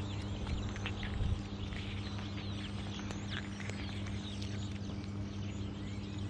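Cats crunching dry kibble close up, a run of small irregular clicks over a steady low hum. Birds chirp in the background.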